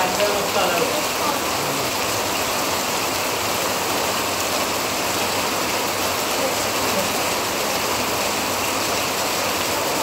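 Monsoon rain falling steadily, an even hiss that holds at one level throughout.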